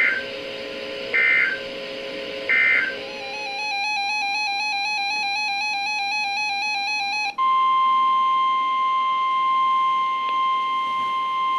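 Emergency Alert System broadcast tones: three short screeching two-tone digital data bursts, the end-of-message code closing a tornado warning, then a few seconds of a stepped, repeating electronic beeping pattern. About seven seconds in, the steady 1050 Hz NOAA Weather Radio alert tone begins and holds.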